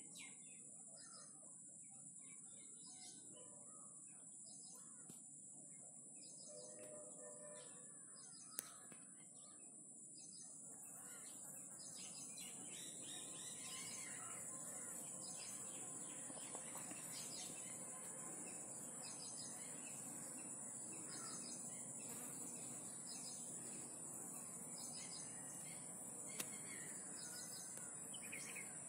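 Faint outdoor ambience: small birds chirping in short repeated calls, over a steady high-pitched whine, with the background growing a little louder about a third of the way in.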